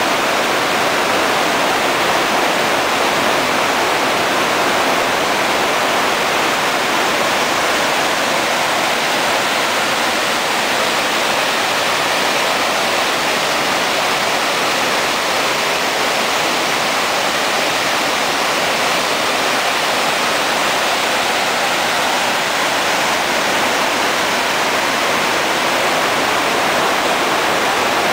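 Mountain stream cascading over granite boulders in a series of small waterfalls: a loud, steady rush of water that does not change.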